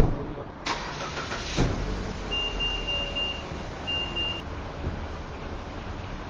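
A car door shutting with a loud bang, followed by two sharp clicks inside the car, then the car's electronic warning chime beeping twice, one longer beep and one short one, over a low steady rumble.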